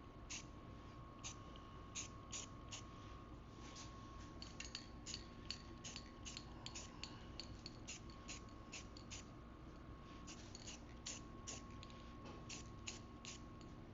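Light, irregular clicks and taps of small hard objects being handled, a few a second and thickest in the middle, over a faint steady hum.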